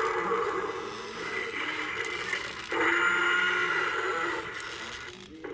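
Toy dinosaur playing its recorded roar sound effect through a small speaker, twice in a row: the second roar starts abruptly just before halfway and fades out near the end.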